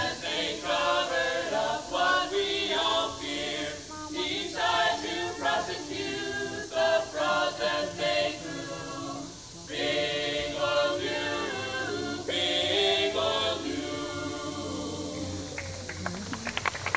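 A group of performers singing together in chorus, phrase after phrase, fading out near the end as clapping begins.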